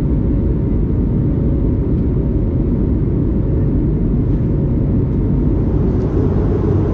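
Steady, loud cabin noise of an Airbus A321neo in flight, heard from a window seat over the wing: engine and airflow noise.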